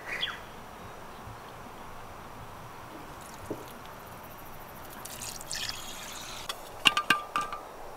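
A spoon scraping and clinking against a steel pot of cooked rice as it is served, with several sharp metallic clinks near the end, over a steady soft hiss.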